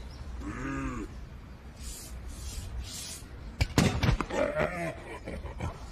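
A cartoon polar bear's wordless grunts and yelps, with a burst of sharp thuds about three and a half seconds in as baseballs fly past him.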